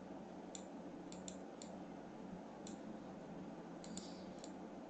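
Computer mouse clicking, about eight short clicks at irregular intervals, over a faint steady hiss and hum from the microphone.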